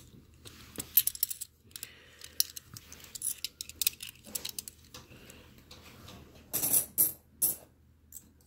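Silver half-dollar coins clicking and clinking against one another as they are handled and shuffled in the hands, with scattered sharp clicks and a brief louder flurry about two-thirds through.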